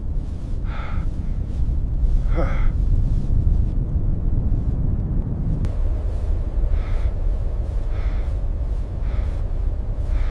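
Blizzard wind blowing as a steady low rumble, with a man's heavy, labored breaths and gasps coming about once a second, one of them a short falling groan.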